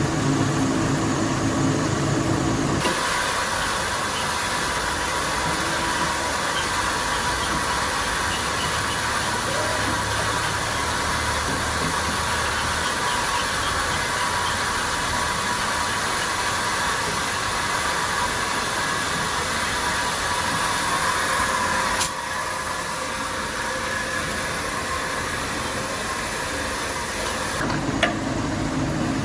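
Steady factory machinery noise, a dense hiss and hum with a faint steady tone, changing abruptly about three seconds in, again near 22 seconds and once more near the end.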